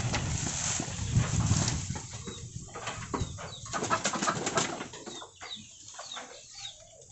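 Farmyard chickens: a burst of rustling noise for about the first two seconds, then scattered short chirps and clucks.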